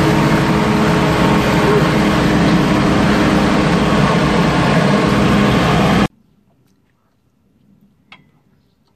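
Tractor engine running, heard from inside the cab as a loud, even drone with a steady hum. It cuts off abruptly about six seconds in, leaving only faint sounds and a single click.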